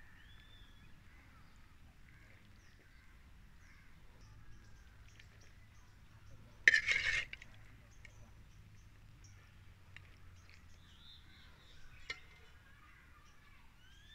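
Faint birds chirping, with one short, loud burst of noise a little after halfway through.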